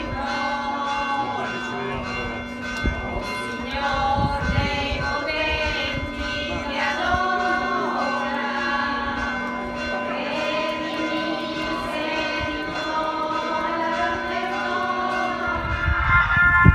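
A hymn sung by the voices of a procession crowd, over a steady held low tone. Near the end the singing gives way to a louder rumble.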